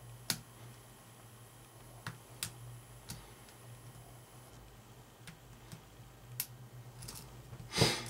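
Hook pick and tension wrench working the pin stack of a Schlage seven-pin small-format interchangeable core: scattered light metallic clicks at irregular intervals, with one louder, longer noise near the end, over a steady low hum.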